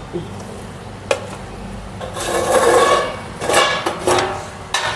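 Steel dishes being handled on a tiled floor: a scrape lasting about a second in the middle, with a click before it and a few short knocks after it.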